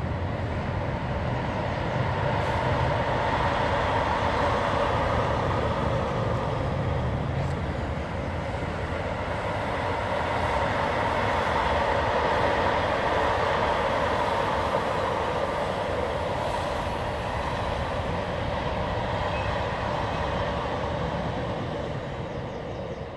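Freightliner container train rolling over a railway bridge: a steady rumble and rail noise from the passing wagons, beginning to fade near the end.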